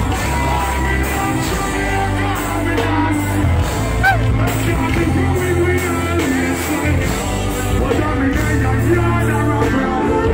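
Live music with a deep bass line and a steady beat, and a voice singing over it.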